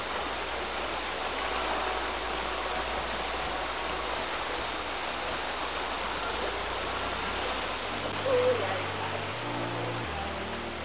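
Steady, even rushing hiss; low music notes come in about eight seconds in.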